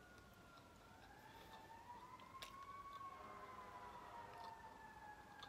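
Faint emergency-vehicle siren wailing in the distance: one slow wail that rises in pitch for about two seconds, then slowly falls.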